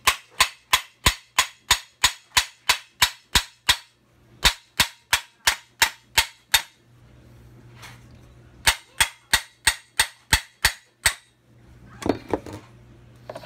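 Hammer blows on a nut threaded onto the end of a Kawasaki KE100 crankshaft, sharp metal-on-metal strikes about three a second in three runs with short pauses, a few lighter knocks near the end. The crank is stuck in its main bearing and does not move.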